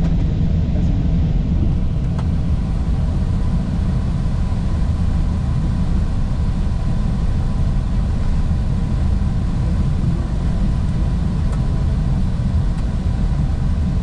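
Airliner rolling along the runway after landing, heard from inside the cockpit: a steady low rumble of the wheels and engines, with a faint thin steady whine above it.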